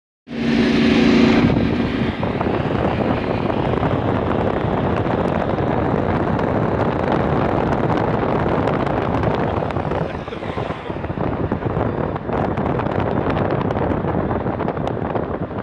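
Steady wind and road noise from a moving car, mixed with the engine and exhaust of a flathead hot rod roadster driving close by.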